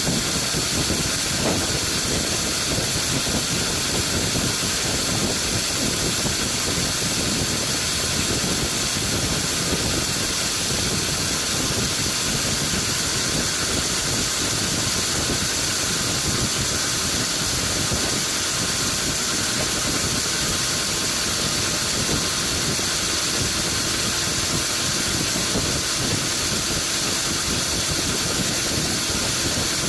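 Sawmill machinery running steadily: a constant mechanical drone under a loud, even hiss, with no breaks or changes.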